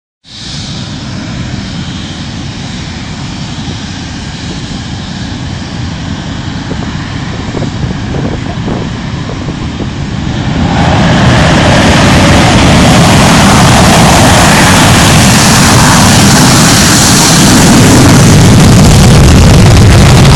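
F-16 fighter jet engine running on the runway with a high whine over a low rumble, then about ten seconds in it jumps to a very loud, full roar as the afterburner is lit for the takeoff, held at full strength.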